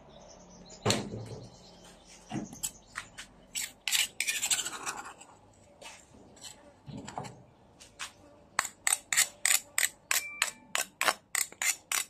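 Kitchen utensils and containers handled over a bowl: scattered light clicks and taps, a short scraping rustle about four seconds in, then a quick run of sharp ticks, about three a second, in the last few seconds.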